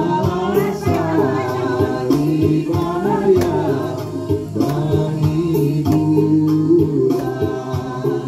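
People singing into handheld microphones over backing music.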